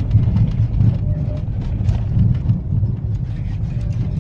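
Low, steady rumble of a car driving slowly over a snowy road, heard from inside the cabin.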